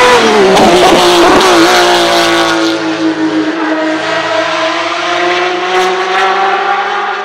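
Race car engine at high revs. Its pitch dips and wavers in the first two seconds, then holds a steady high note that edges up slightly near the end.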